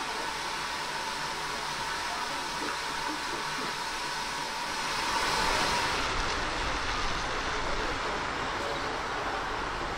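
Steam hissing from a leak at the coupling between a GWR pannier tank locomotive and its autocoach, a steady hiss that swells about five seconds in. At about six seconds the hiss stops abruptly and a lower rumble takes over.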